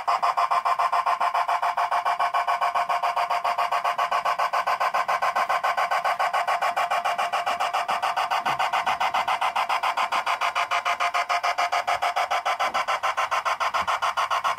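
G scale model steam locomotive chuffing at a rapid, perfectly even beat while it shunts, a steady rasping exhaust sound.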